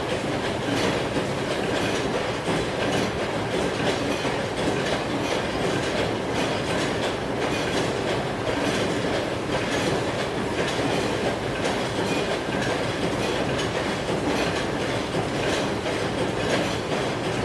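Train rolling steadily on rails: a continuous rumble with the clatter of wheels over track joints.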